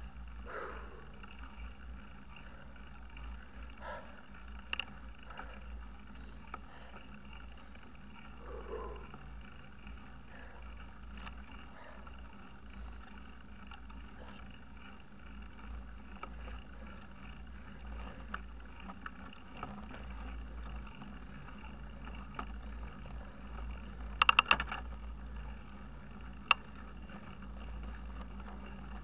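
Mountain bike rolling along a paved road, heard from a camera on the bike: a steady low rumble of wind on the microphone and tyres on tarmac, with scattered rattling clicks from the bike. A quick burst of sharp clicks near the end is the loudest sound.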